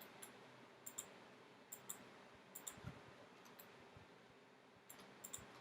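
Computer mouse clicking: a sparse run of light clicks, several in quick pairs, over faint room tone.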